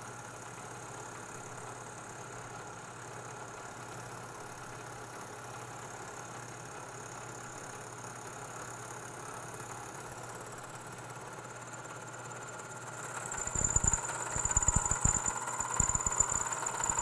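Vertical milling machine's spindle running with a steady whine. About thirteen seconds in, the end mill starts cutting the notch in the part, adding a louder, irregular chatter and a high squeal that grows near the end.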